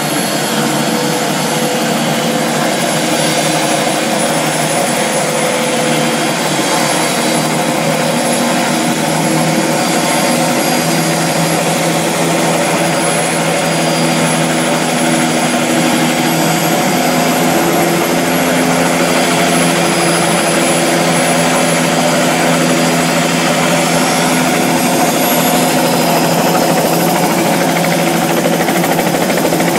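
Bell 206 JetRanger helicopter running on the ground with its rotor turning, its Allison 250 turboshaft giving a steady high whine over a continuous engine and rotor drone. The sound holds steady, with a slight rise near the end.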